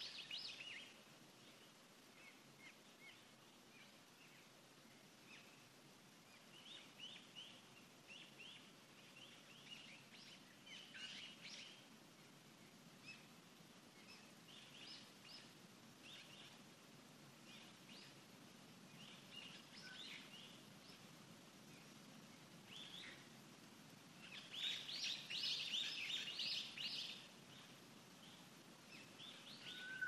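Quiet outdoor ambience with small birds chirping and calling on and off over a faint steady background hiss, the calls growing busier and louder for a few seconds near the end.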